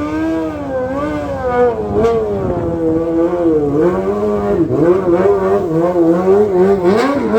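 Stunt vehicle's engine revving up and down continually, its pitch rising and falling every second or so, with quicker throttle blips near the end.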